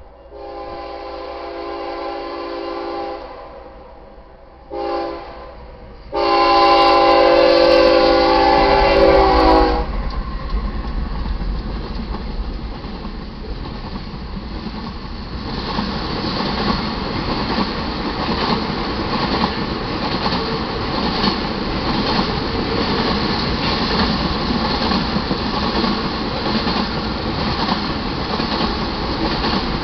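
Freight train horn on a BNSF GE ES44AC locomotive sounding a long blast, a short one, then a final long, loudest blast, the close of a grade-crossing signal. The train then rolls through: a steady rumble with tank car wheels clattering over the rail joints, growing louder about halfway.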